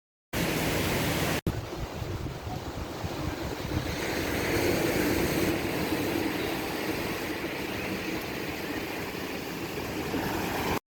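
Steady outdoor rushing noise with wind buffeting the microphone in a low, fluttering rumble. It starts and stops abruptly, with a split-second break about a second and a half in.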